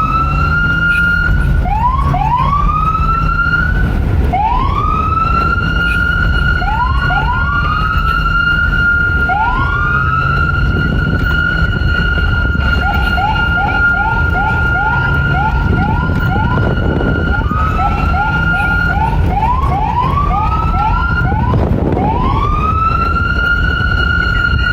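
Police car siren: over and over it rises in pitch and holds a high steady note. Twice, about halfway through and again near the end, it breaks into a fast yelp of short chirps, about three a second. A steady low rumble runs underneath.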